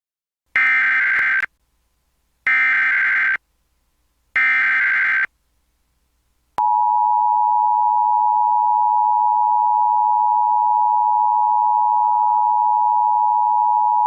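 Emergency Alert System header: three short bursts of warbling digital data tones about two seconds apart, then the steady two-tone EAS attention signal starting about six and a half seconds in. It announces an EAS test message.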